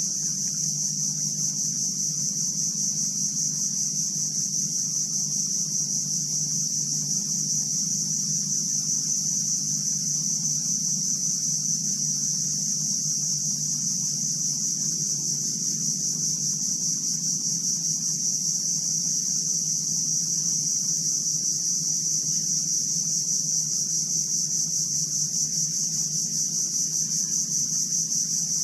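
Steady high-pitched insect chorus, a continuous shrill buzz that does not change, with a low steady hum beneath it.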